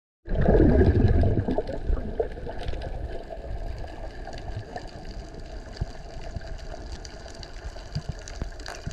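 Muffled underwater water noise around a submerged camera: a loud low rush in the first second and a half, then a steadier low rumble with a faint steady hum and scattered short clicks.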